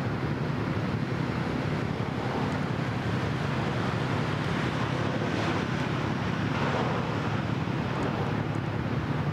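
Wind buffeting the microphone over a steady low drone of boat engines.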